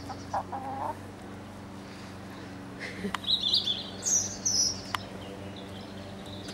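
A small bird chirping in high, quick notes about three to five seconds in, with two sharp clicks, one about three seconds in and one about five.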